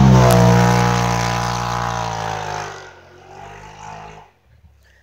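Rally side-by-side (UTV) passing close by at speed, its engine at high revs. The engine pitch drops as it goes past and the sound fades away over about three seconds.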